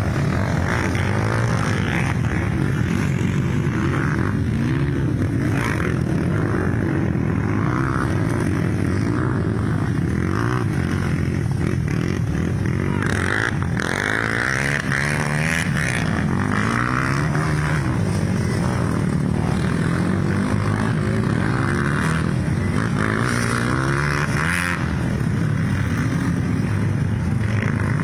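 Several dirt bike engines running and revving together, their pitch rising and falling over and over as the riders throttle on and off.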